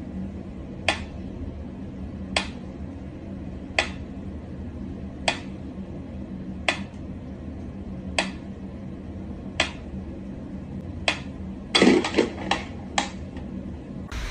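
Sharp, evenly spaced clicks, one about every second and a half, over a low steady hum, then a quick run of louder clatters near the end.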